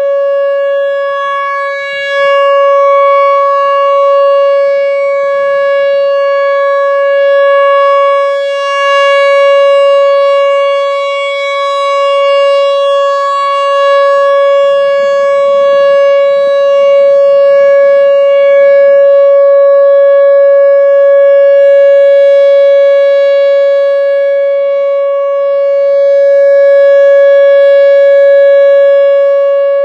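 Whelen Vortex R4 outdoor warning siren sounding a steady tone at a single pitch, with mild swells in loudness. It is a steady alert signal for the monthly test, not a wail.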